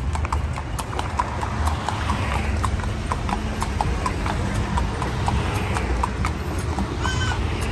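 Carriage horse's hooves clip-clopping on the street in a steady rhythm of several strikes a second as it pulls a horse-drawn calèche, over a steady low rumble.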